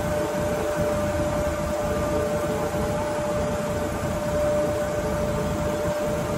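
Wooden river boat's engine running steadily, with a constant whining tone over the rumble.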